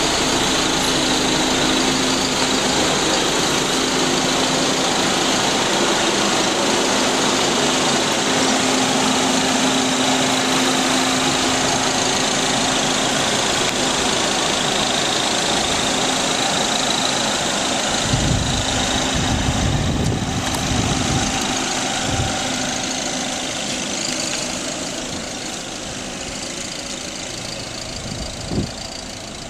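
1999 VW Passat 1.8T's turbocharged four-cylinder engine running with a loud, turbo-like whistling hiss from an exhaust leak: the bolts holding the exhaust header to the cylinder head are loose. The sound runs steadily and grows fainter near the end.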